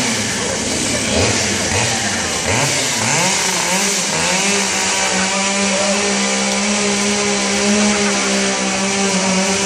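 Two-stroke gasoline chainsaw revving up and down in quick bursts, then held at a steady high speed from about halfway in as it is worked into an upholstered sofa.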